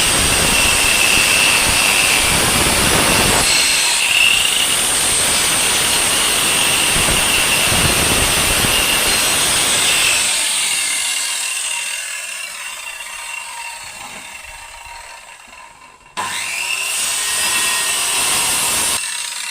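Power saw cutting wood: a steady motor whine over the rasp of the cut. It fades away over several seconds, breaks off abruptly, then comes back loud and stops abruptly again near the end.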